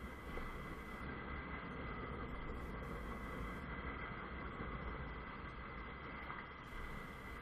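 Honda CBF 125's single-cylinder engine running under steady wind and road noise on a moving motorcycle, picked up by an action camera's microphone, with a faint steady high whine throughout.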